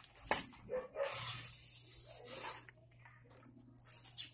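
Coconut palm leaflets being stripped from their midribs by hand and knife: a sharp snap, then a rasping scrape of leaf lasting about a second and a half.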